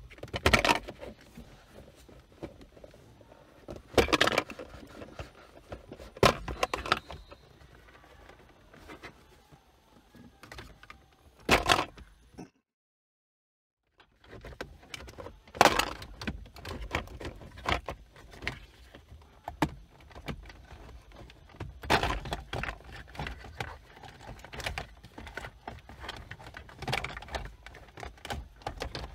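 Toyota Corolla's plastic centre-console trim around the automatic gear selector being handled and pressed back into place: scattered clicks, knocks and rattles, with several louder snaps.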